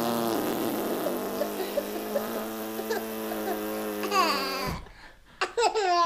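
A person's voice making a long, steady buzzing funny noise that cuts off abruptly about four and a half seconds in, followed by bursts of laughter falling in pitch near the end.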